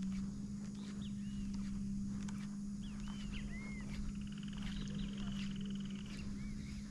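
Wild animal calls: scattered short arched chirps, with a fast, even trill about four seconds in, over a steady low hum.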